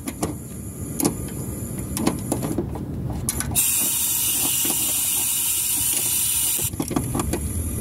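A small wrench clicking on the adjusting nut and linkage of a truck's air-suspension leveling valve. About three and a half seconds in, a steady hiss of air through the valve sets in and cuts off suddenly some three seconds later, as the adjustment changes the air in the suspension bags. The clicking then resumes.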